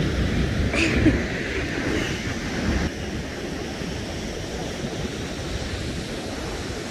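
Steady wind noise on the microphone mixed with ocean surf, a low rumbling hiss that eases slightly about three seconds in.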